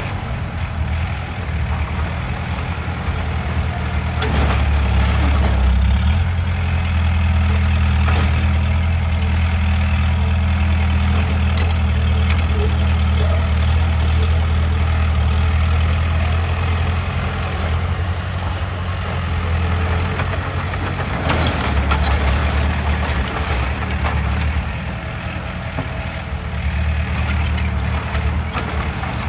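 Heavy diesel earthmoving machinery running steadily under load, its engine note rising a few seconds in and easing briefly twice near the end, with occasional faint clanks.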